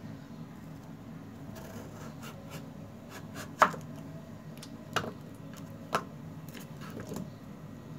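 Large kitchen knife chopping through carrots onto a foil-covered wooden cutting board: light taps, then four sharp chops about a second apart, the first the loudest. A steady low hum runs underneath.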